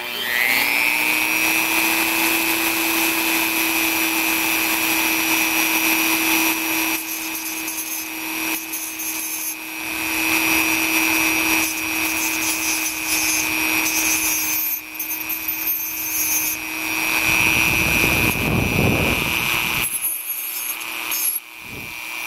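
Small rotary tool spinning up and running with a steady high whine, its cutoff wheel grinding a slot into the end of a broken fly rod section. The grinding comes and goes as the rod is pressed to the wheel.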